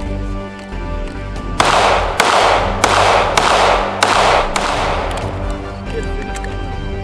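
Six gunshots in quick succession, about 0.6 s apart and starting about a second and a half in, each trailing off in a long echo, over steady background music.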